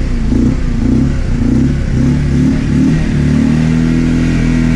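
Honda Elite 150 scooter's small single-cylinder four-stroke engine running. Its pitch rises and falls with throttle blips for about three seconds, then it settles to a steady idle. The engine has just been revived and dies if the throttle is let go.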